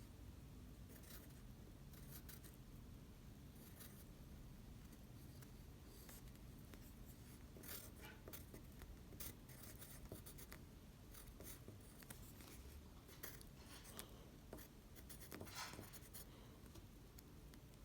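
Faint, irregular crinkly crackles of edible paper made to look like tissue paper being eaten close to the microphone, coming in small clusters.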